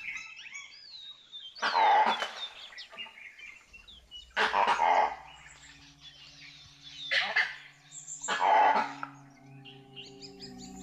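An animal gives four loud calls, each about half a second long and spaced a couple of seconds apart, with birds chirping faintly early on. A low, steady music drone comes in about halfway and grows toward the end.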